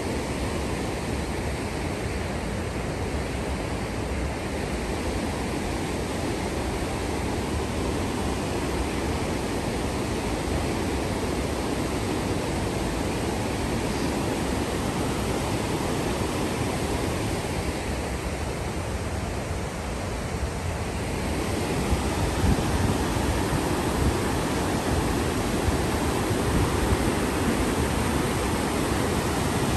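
River rapids rushing in white water: a steady roar of water that grows louder about two-thirds of the way through.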